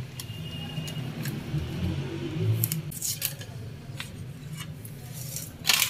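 Short sharp clicks and crinkles of a plastic-foil coffee sachet being handled over the cups, with a louder rustle near the end.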